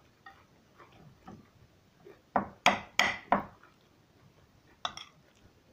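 Metal spoon clinking and scraping against a china plate while scooping rice: a quick run of four clicks about halfway through and one more near the end.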